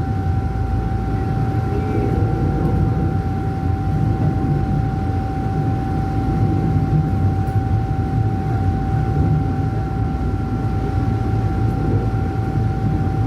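Tokyu 8500-series electric commuter train running, heard from inside the driver's cab: a steady low rumble of the train on the track, with a constant high whine throughout.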